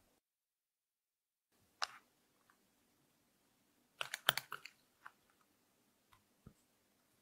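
Spoon clinking and scraping against a small glass bowl while stirring cream and matcha powder into a paste: a single tap about two seconds in, then a quick run of clinks a little past halfway, and a few faint ticks near the end.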